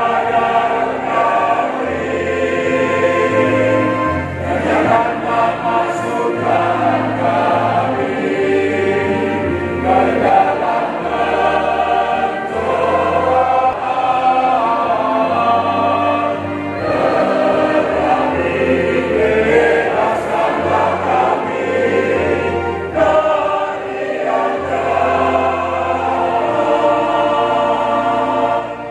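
A mixed church choir singing a hymn in several parts, with held chords changing every second or two.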